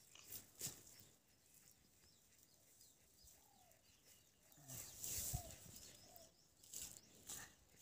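Faint rural yard ambience with a few short, soft chicken clucks and scattered brief rustles and taps. The loudest is a short rustling burst about five seconds in.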